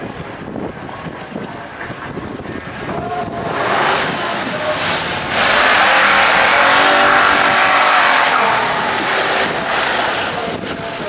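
Drag-racing cars' engines running as they move up to the start line, growing louder about three or four seconds in and loudest from about five to nine seconds in before easing off.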